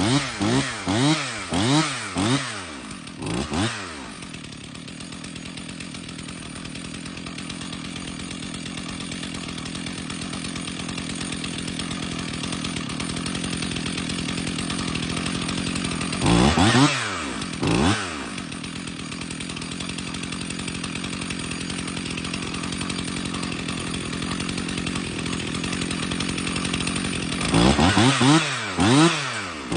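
Old 60cc McCulloch two-stroke chainsaw revved in a run of quick bursts, then idling steadily, with two short revs a little past halfway and another quick run of revs near the end.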